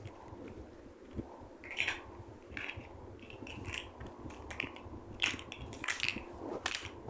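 Small plastic pieces being handled: a string of short, irregular crinkles and clicks, several in the last few seconds.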